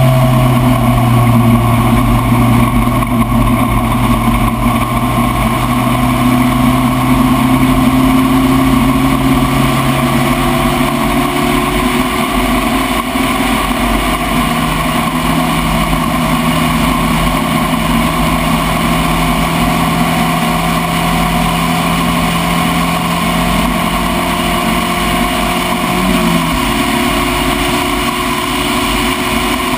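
Spec Racer Ford race car engine running under way, its pitch stepping up about twelve seconds in and dropping suddenly near the end.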